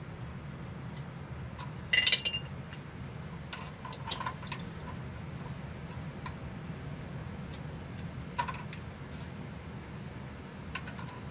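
Metal pots and kitchen utensils clinking and knocking: one sharp clink about two seconds in, the loudest, then a few lighter knocks, over a steady low hum.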